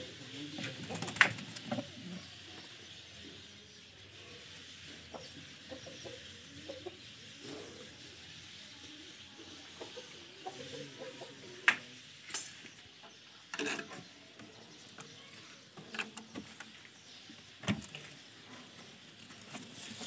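Domestic pigeons cooing in a wooden loft, low and irregular, with scattered sharp knocks, the loudest about a second in and three more in the second half.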